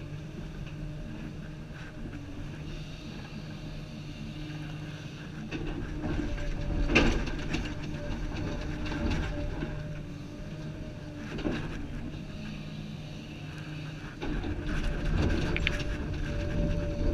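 Komatsu 350 excavator's diesel engine and hydraulics heard from inside the cab, running steadily and working harder in stretches as the boom and bucket move: from about six seconds in, briefly near twelve seconds, and again from about fourteen seconds on. There is a sharp knock about seven seconds in.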